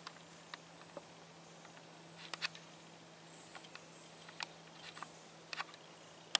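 Twigs and dry leaf litter crackling and snapping in the forest undergrowth, in scattered clusters about two seconds in and again later, ending with one sharp snap.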